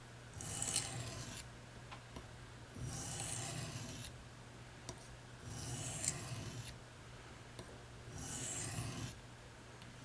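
Four slow scraping strokes of a knife blade, each about a second long and evenly spaced, over a steady low hum.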